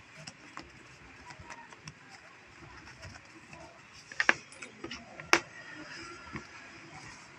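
Handling noise as a fabric pouch's drawstring cord is unwound on a hard surface, with light rustles and ticks and two sharp clicks about four and five seconds in.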